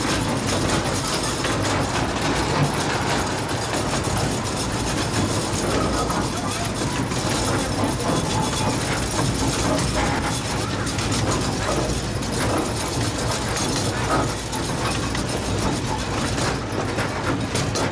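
15-inch gauge miniature passenger train running along its track, heard from aboard one of its open cars: a steady rolling rumble and rattle of the cars on the rails.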